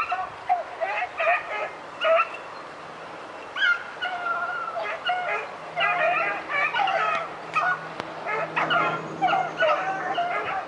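A pack of rabbit hounds baying in many overlapping voices as they run a rabbit's trail, with a short lull about two seconds in.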